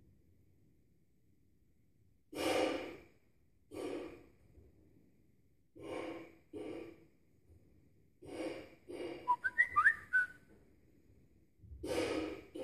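A man blows a large latex balloon up by mouth in a series of breathy puffs, spaced a second or two apart. Near two-thirds of the way through there is a brief squeaky whistle with wavering pitch.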